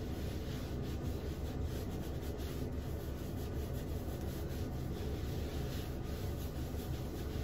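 A terry towel rubbed over wet short hair to dry it. The steady scratchy rubbing runs without a break, close to the microphone.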